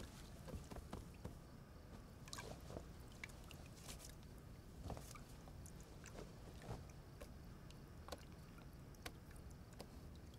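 Faint water in a bathtub: soft sloshing and scattered small drips and splashes as a bather moves in the water.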